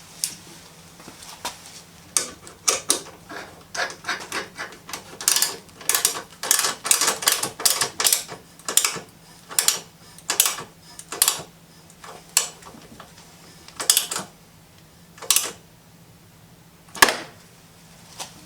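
Ratchet wrench clicking in short, irregular strokes as bolts are run in. The strokes come thick and fast for a few seconds, then slow to single strokes a second or more apart.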